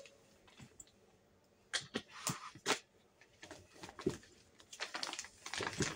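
Bags and clothes being rummaged through on a wardrobe shelf: a run of irregular rustles, scrapes and light bumps that starts about a second and a half in.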